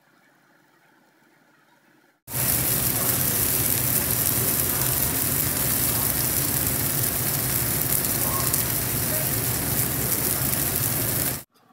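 Young golden chanterelles, onion and chilies sizzling in bubbling oil and a little water in a wok. The sizzling is loud and even; it starts abruptly about two seconds in and cuts off just before the end.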